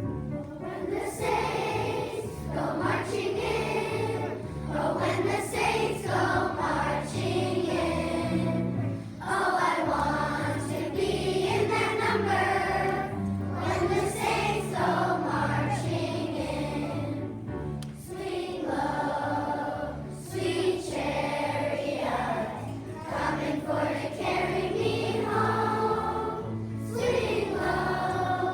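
A choir singing a spiritual in unison over an instrumental accompaniment with a steady beat.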